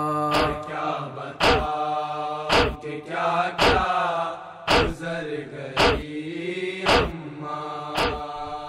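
Urdu noha, a Muharram lament, sung by a solo voice in long held, wavering notes between verses, kept in time by sharp matam chest-beating slaps about once a second.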